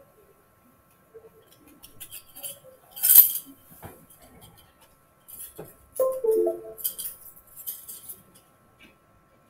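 Scattered small clicks and clinks, like objects handled on a desk, loudest about three seconds in, with a brief pitched squeak-like sound about six seconds in.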